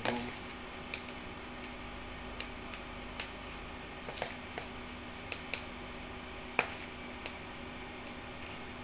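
Light, scattered clicks of a metal spoon against a small plastic cup as thick ice cream is scooped into it, the loudest about two-thirds of the way through, over a steady low hum.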